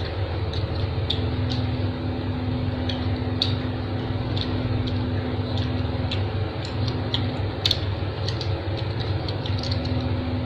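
A steady low mechanical hum with a couple of held tones above it, under scattered small clicks and ticks that come irregularly.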